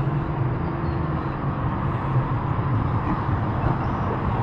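Steady low rumble of road traffic crossing the concrete highway bridge overhead.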